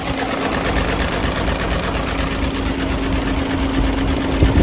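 Isuzu Giga truck's diesel engine idling, heard close up in the engine bay: a steady clatter with a steady hum under it.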